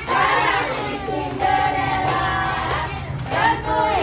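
Young children singing together, with long held notes.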